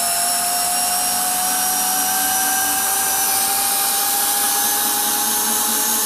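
Bosch PS31 12V cordless drill/driver running steadily in low gear (speed one), backing a long TimberLOK wood screw out of a wooden stump under load. Its motor whine rises slightly in pitch.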